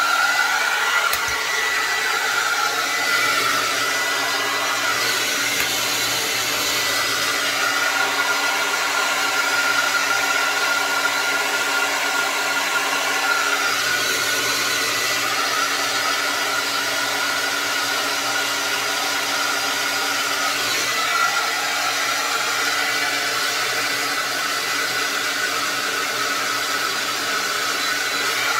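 Conair Ionic Cordkeeper handheld hair dryer running steadily, a rush of air with a high steady whine.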